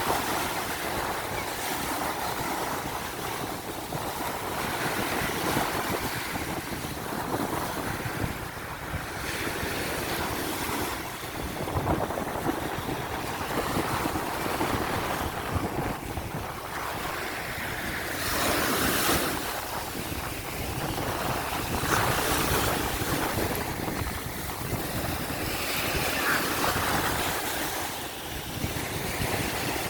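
Ocean surf: waves washing in and breaking, the rush swelling and easing every few seconds, with wind buffeting the microphone.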